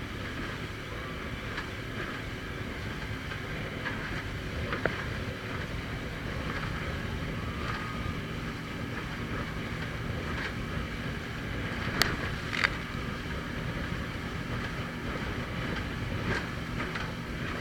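Motorboat engine running steadily under wind and water noise, with a few sharp knocks, the loudest two close together a little past the middle.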